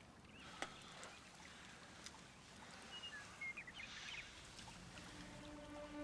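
Very quiet outdoor ambience with a few faint chirps, then a soft, sustained soundtrack chord fading in about five seconds in.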